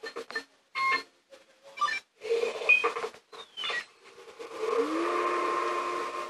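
Cartoon soundtrack playing through a television's speaker: a string of short, broken sound effects, then music comes in about four and a half seconds in with a rising note that settles into steady held tones.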